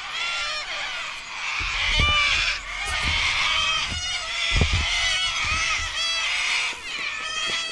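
A flock of birds calling over one another, many short calls overlapping, with a few low thumps about two and four and a half seconds in.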